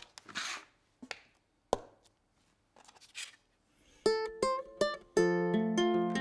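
A paper card handled on a wooden tabletop: a few light taps and two soft brushing swishes. About four seconds in, a plucked-string tune begins and becomes the loudest sound.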